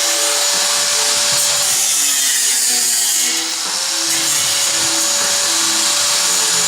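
Handheld power grinder whining steadily as it cuts away the sheet metal of a car's rear guard that was rubbing on the tyre. Its pitch sags briefly about three and a half seconds in as the cut loads it.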